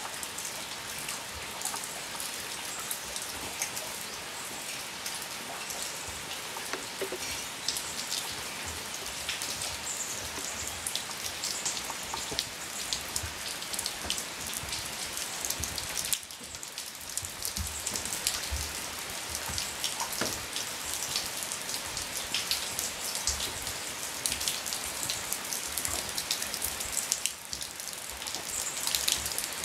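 Steady rain falling, with many separate drop hits heard close by; it dips briefly about halfway through and again near the end.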